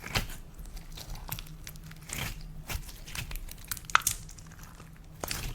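Slime being squeezed and worked by hand, giving irregular sticky crackles and pops, with one sharp pop about four seconds in.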